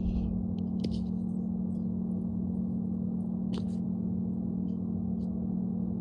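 A steady low drone from the soundtrack of an experimental film, with scattered faint crackles and clicks over it, the sharpest about a second in and again about three and a half seconds in.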